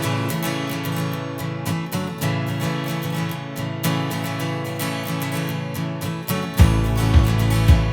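Background music: strummed acoustic guitar with a steady rhythm, a bass beat coming in near the end.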